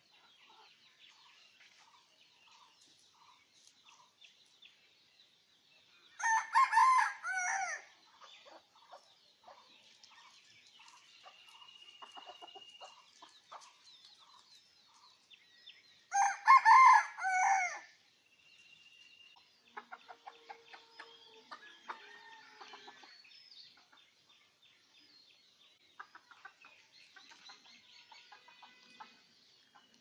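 Rooster crowing twice, two loud cock-a-doodle-doos about ten seconds apart, with soft clucking in between and afterwards.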